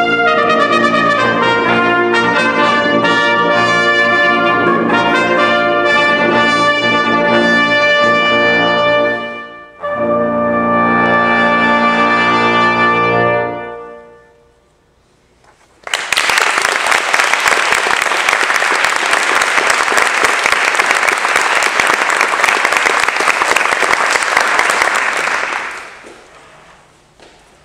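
Brass quintet of two trumpets, French horn, trombone and tuba playing the final bars of a piece. After a brief break it ends on a long held chord that dies away. About two seconds later the audience applauds for some ten seconds.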